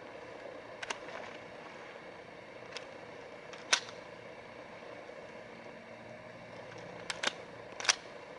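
Single sharp .22LR rifle shots from an AR rifle fitted with a .22LR conversion kit, firing cheap Remington Thunderbolt ammunition: about five cracks at irregular spacing, one about a second in, one near the middle, a quick pair about seven seconds in and one more just after.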